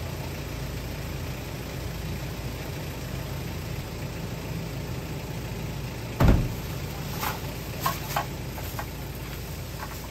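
The swing-out rear door of a Toyota FJ Cruiser, with its spare tyre mounted on it, slams shut about six seconds in with one heavy thump. A few light clicks follow, and a low steady rumble runs underneath.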